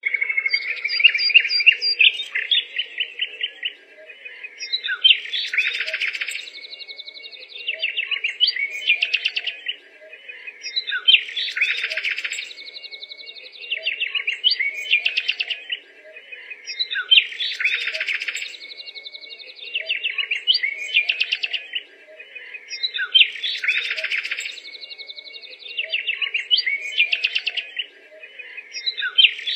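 Birds chirping and singing, a looped passage of high trills and whistles with one steady whistled note, the same phrase coming back about every six seconds.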